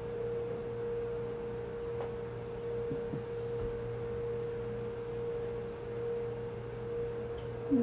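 A steady, pure-sounding hum held at one pitch, over a lower hum, with a couple of faint ticks about three seconds in.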